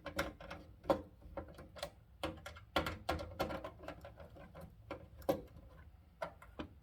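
Screwdriver turning the terminal screws on a fire alarm panel's zone terminal block to clamp the wires: a run of small, irregular metallic clicks and scrapes.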